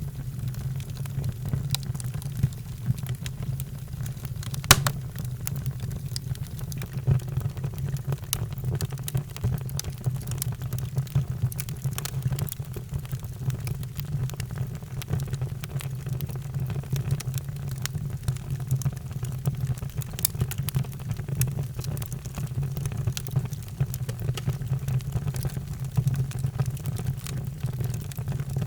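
Wood fire burning in a fireplace: a steady low rumble of flames with scattered crackles and pops, the sharpest pop about five seconds in.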